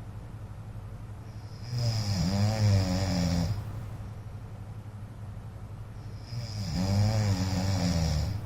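A man snoring in his sleep: two long, loud snores about five seconds apart, each lasting nearly two seconds and wavering in pitch.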